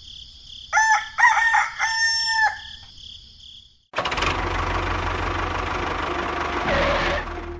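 A rooster crows once: a run of short notes and then a long held note that drops at the end. About four seconds in, a motor starts abruptly and runs with a steady, fast rattling buzz.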